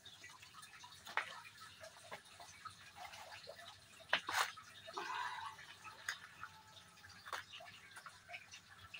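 Scattered light taps and clicks of a plastic seedling tray and plastic pot being handled on a tiled floor, with potting soil rustling as it is tipped out; a couple of louder knocks come about four seconds in.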